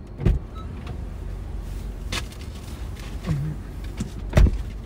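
Steady low rumble of a car idling, heard from inside the cabin, with three sharp knocks, the loudest near the end.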